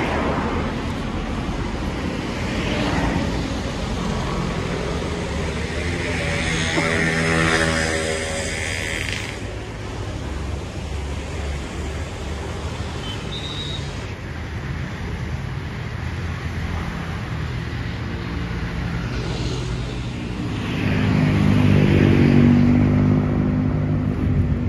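Road traffic: a steady rumble of car and motorbike engines, swelling twice as vehicles come close, around 7 seconds in and more loudly around 22 seconds in.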